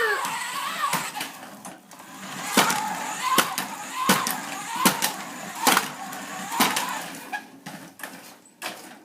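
A toy RC car run in short bursts, with a string of sharp knocks a little under a second apart as it bumps and hits things.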